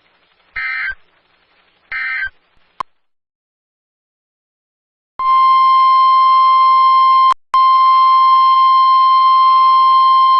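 Emergency Alert System SAME data bursts, two short buzzy chirps about a second and a half apart, that close the previous warning as its end-of-message code, then a click and a couple of seconds of silence. About five seconds in, the NOAA Weather Radio 1050 Hz warning alarm tone starts: a loud, steady single high tone with a brief dropout partway through, announcing the next severe thunderstorm warning.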